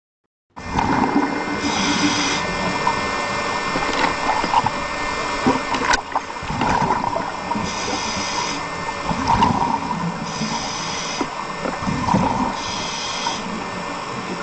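Underwater scuba-dive recording: a steady bubbling rush from a diver's regulator and exhaled bubbles, with a sharper regulator hiss four times. It starts suddenly about half a second in.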